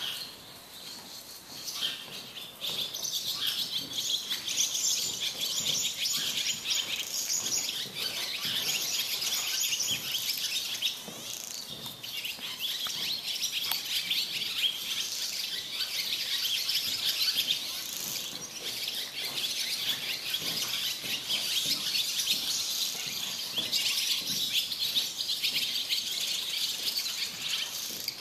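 Many small birds chirping busily and without a break, a dense chatter that becomes loud about two and a half seconds in.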